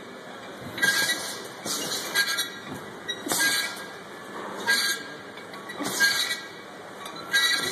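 Loaded EZ-curl barbell clinking and squeaking with each curl: short metallic rattles from the weight plates on the sleeves, about six times, one per rep.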